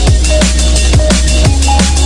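Electronic background music with a steady beat about twice a second, each hit falling in pitch, over a deep held bass and short synth notes.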